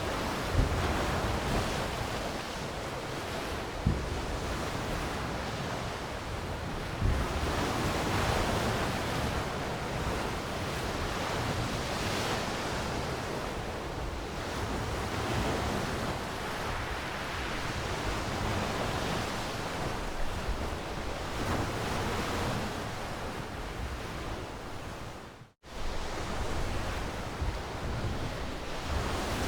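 Ocean surf: waves washing in and out, the rush swelling and easing every few seconds. The sound cuts out for a split second about 25 seconds in.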